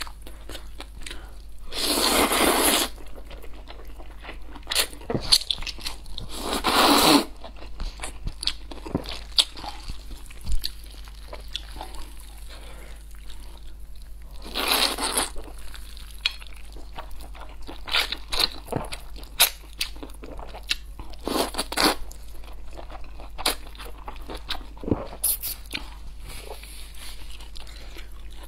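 Close-miked eating of black-bean fire noodles: several long noisy slurps of noodles drawn into the mouth, the loudest about two seconds in, with wet chewing and many small crunching clicks between them.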